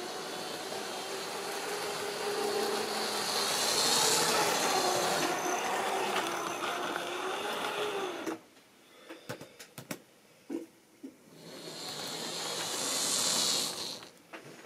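OO gauge model train running on a layout: the locomotive's small electric motor hums with a wavering pitch while the wheels hiss along the rails, swelling louder twice as the train passes close by. About halfway through it drops away suddenly, leaving a few sharp clicks before the running sound builds again.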